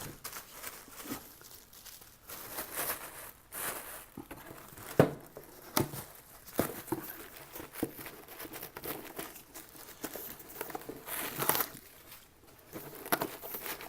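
Packaging being crinkled and torn as parts are worked out of a tightly packed box, in irregular rustles with a sharp click about five seconds in.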